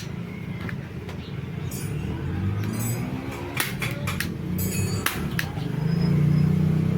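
Metal clinks and knocks of hand tools against metal parts, over a low hum that rises in pitch a couple of seconds in and grows louder near the end.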